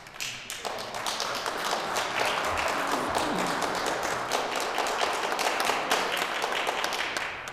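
Audience applauding: many hands clapping, rising just after the start, holding steady, and dying away near the end.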